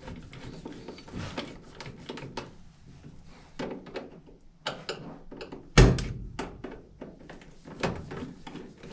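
Knocks and clunks as a furnace's access panel is handled and fitted back on, with the loudest thunk about six seconds in.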